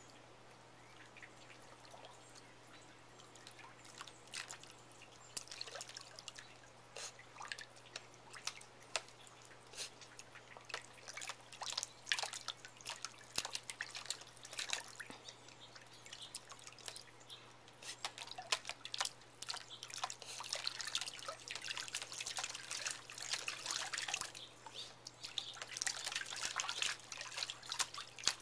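Airedale terrier puppy pawing at water in a plastic tub with its front paws: irregular splashes and drips, sparse at first, busier from about four seconds in and most dense near the end.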